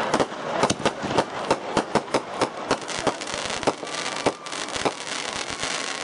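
Aerial fireworks going off: a rapid, irregular string of sharp bangs and crackling pops from bursting shells and crackle stars, thinning out after about four seconds.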